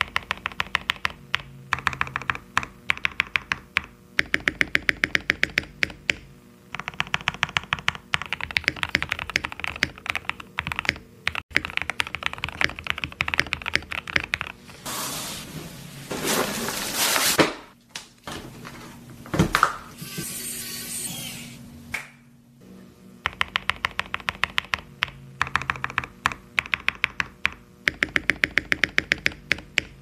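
Fast typing on a mechanical keyboard with lubed and filmed SP-Star Meteor White switches, tape and PE foam mods and PBT keycaps, a dense run of keystrokes. About halfway through, the typing stops for several seconds of scraping and rustling as a boxed product is handled, with one sharp click, and then the typing resumes.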